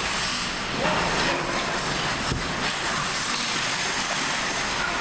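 Ice hockey rink din during play: a steady rushing noise of skates scraping the ice, with a stick or puck clack a little past two seconds and faint distant shouts about a second in.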